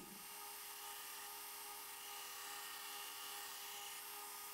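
Belt grinder running, a faint steady whine over a hiss, while a steel chef knife blade is held against the abrasive belt for grinding.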